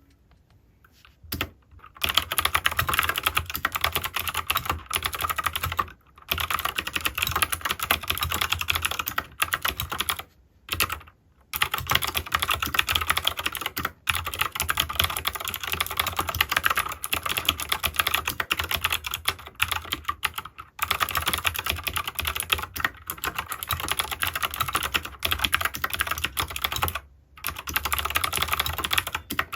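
Anne Pro 2 mechanical keyboard with clicky Gateron Blue switches being typed on fast and continuously, a dense run of sharp key clicks. Typing starts about two seconds in and pauses briefly a few times.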